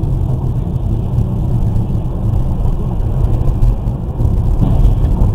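Steady low rumble of road and engine noise inside a moving car's cabin, as picked up by a dashcam.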